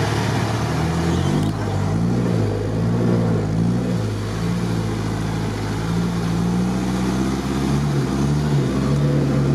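Off-road vehicle engine running under load in low gear, its revs rising and falling again and again while it tows another vehicle through mud.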